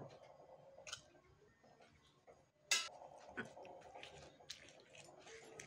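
Stone pestle (ulekan) working in a stone mortar (cobek): one sharp stone-on-stone knock near the middle, then soft squishy clicks as tomato wedges are pressed and crushed into coarse chili sambal.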